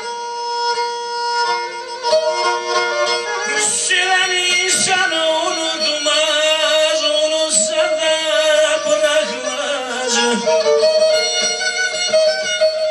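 Instrumental passage of a slow Black Sea folk song: a bowed kemençe melody with sliding notes over a held accompaniment.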